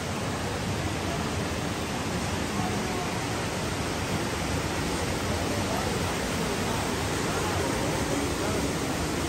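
Steady rush of water cascading down a rocky mountain valley. Faint voices of passers-by come in over it in the second half.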